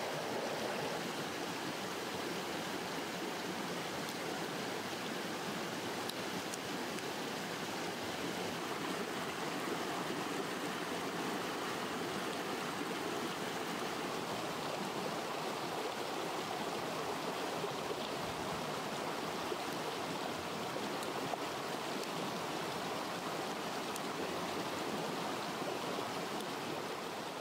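Steady rushing of flowing stream water, even and unbroken.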